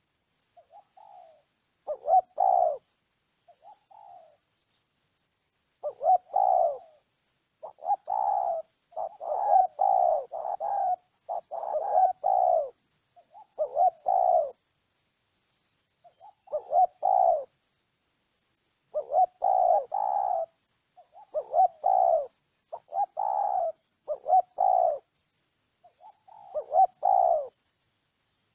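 Spotted dove cooing: repeated phrases of short, low coos in groups of two to four notes, with pauses of a second or two between them. Behind them, a faint high chirp repeats steadily about twice a second.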